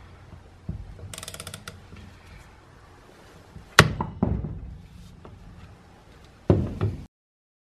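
A ratchet wrench clicking in a quick run on the magneto flywheel nut of a scooter engine, then sharp metal knocks, two about four seconds in and two more near the end, like hammer blows on the flywheel puller. The sound cuts off suddenly just before the end.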